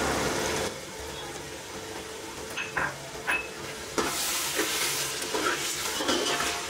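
Mutton masala sizzling in a pressure-cooker pot as chopped mint goes in, then a perforated steel spoon stirring and scraping through it with a few sharp clicks against the pot. The sizzle and stirring get louder from about four seconds in.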